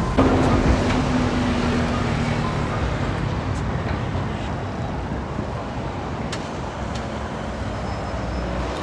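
Steady road traffic from cars passing on a busy multi-lane city road, with a low engine hum for the first couple of seconds.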